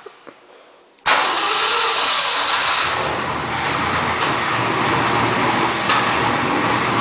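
Ford 352 V8 engine coming to life abruptly about a second in and running steadily; an engine that still wants lots of fuel to keep running.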